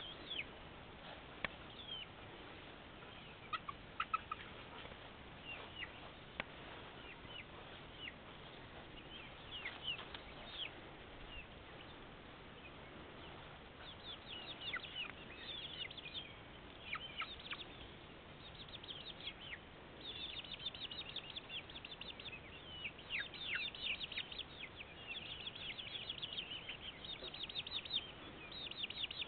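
Young chickens in a wire run peeping and chirping: short, high, falling peeps, scattered at first and then coming thick and almost without pause over the second half.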